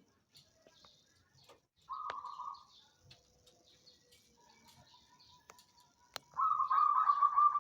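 Perkutut (zebra dove) cooing: a short trilled coo about two seconds in, then a louder, longer trilled coo starting near the end. Faint high chirps of other small birds are heard throughout.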